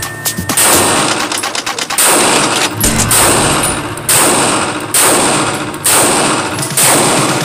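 A Smith & Wesson M&P 2.0 9mm pistol fired at a steady pace of about one shot a second. Each shot is sharp and echoes in an indoor range.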